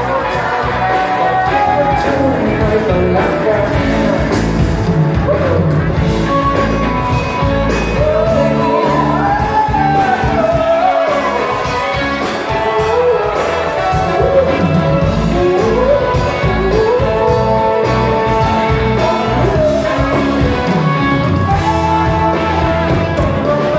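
Live band performance: a singer singing a melody into a microphone over electric guitar, bass and a steady rock beat.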